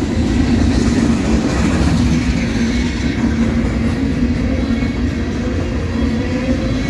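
Norfolk Southern freight train rolling past at close range: a loud, steady rumble of wheels on rail with a steady low hum underneath.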